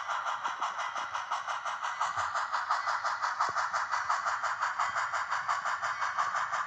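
HOn3 narrow-gauge model train running on a layout, a steady sound made of rapid, even pulses.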